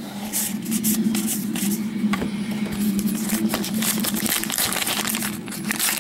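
Crinkling and rustling of a foil trading-card pack wrapper being handled and opened, heard as many short irregular crackles over a steady low hum.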